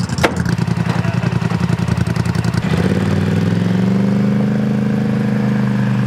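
Tracked ATV engine idling with a steady pulse, with one sharp click just after the start. A little under three seconds in, it revs up slightly and holds at the higher speed.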